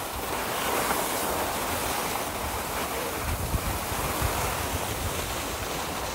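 Skis sliding over groomed snow make a steady rushing hiss, with wind rumbling on the microphone of a moving skier.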